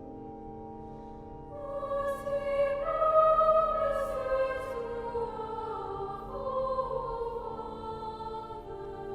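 Choir singing sacred music in a chapel. A held chord is sounding, then voices come in about one and a half seconds in with a slow, falling melodic line.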